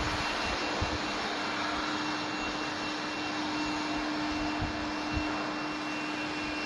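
Small gold melting furnace running: a steady hum and a higher steady whine over an even rushing noise, starting abruptly.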